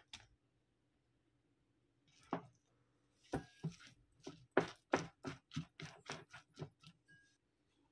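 A rice scoop knocking and scraping against a ceramic bowl as cooked rice is scooped into it: a single knock, then from about three seconds in a run of quick taps, about three a second, that stops shortly before the end.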